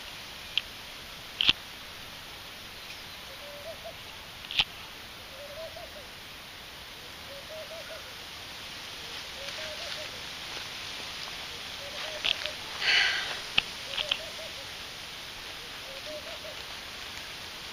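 Quiet outdoor ambience: a steady hiss with faint, short low bird calls every second or two and a few sharp clicks. A short breath about thirteen seconds in.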